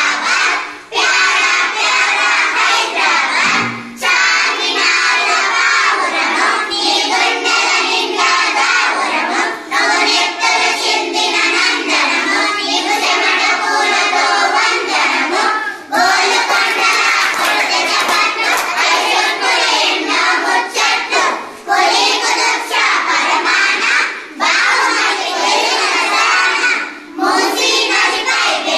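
A group of schoolchildren singing together in unison, line by line, with brief pauses for breath between phrases.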